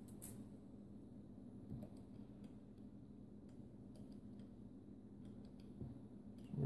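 Faint, scattered ticks and clicks of small replacement screws being handled and started by hand into a fan motor's housing, over a low steady hum.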